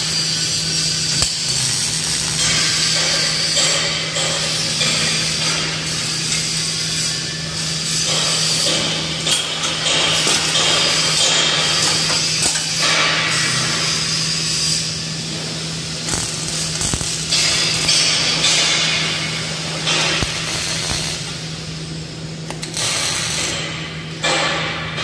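Arc welding of steel square-tube frame joints: the arc's steady hiss stops briefly a few times and starts again as the welder moves between joints, over a steady low hum.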